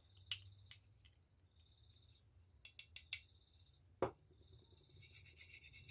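Faint small clicks and taps as the oil bottle and pistol magazine are handled, then about five seconds in a quick, even rubbing starts as gun oil is worked onto the tight-fitting magazine.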